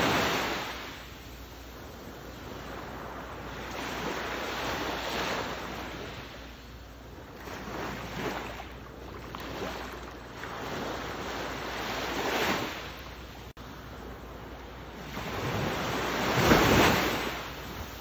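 Ocean surf: waves washing in, the noise swelling and fading in surges about every four seconds, the biggest surge near the end.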